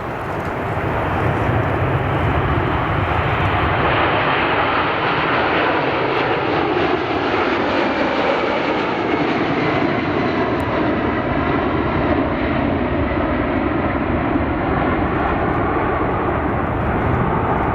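Jet airliner's engines at takeoff thrust, a loud steady rumble that swells about a second in and holds.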